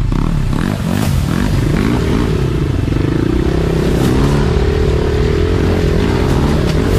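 Enduro dirt bike engine revving up and down over and over with throttle blips, holding a steadier, higher pitch for a moment about three seconds in.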